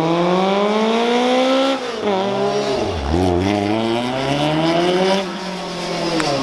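Lancia 037's supercharged four-cylinder rally engine accelerating hard. It comes off the throttle about two seconds in and drops in pitch through quick downshifts, then pulls up through the revs again before easing off near the end.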